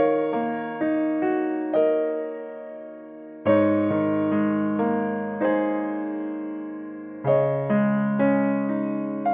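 Background music: a slow, gentle piano or electric piano melody, single notes struck and left to fade, with a new bass chord every few seconds.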